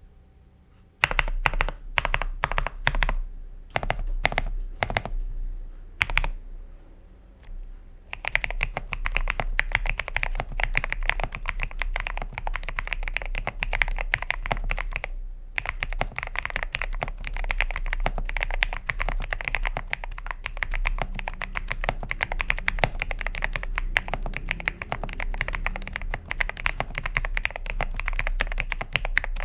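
Typing on a Xinmeng M87 (Xera87) mechanical keyboard fitted with lubed Gateron Milky Yellow Pro linear switches. A few separate keystrokes come first, then steady fast typing, with one brief pause midway.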